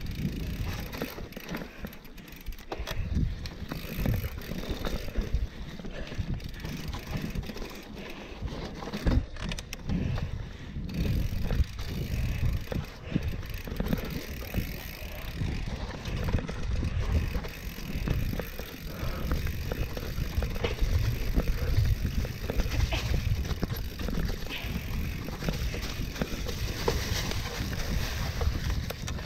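Mountain bike ridden along a forest trail: tyres running over the dirt with an uneven rumble, and the bike clattering and knocking over bumps.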